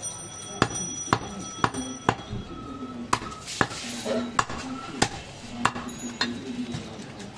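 Heavy butcher's cleaver chopping goat meat into pieces on a wooden log chopping block: a run of sharp chops, roughly two a second.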